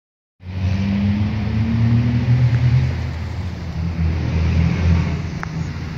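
Diesel locomotive engines of an approaching train, a low steady rumble that starts about half a second in and rises slightly in pitch around the second second before holding.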